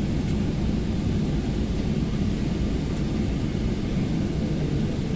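Steady low rumble inside an airliner's cabin as it taxis, from its jet engines and the ground roll.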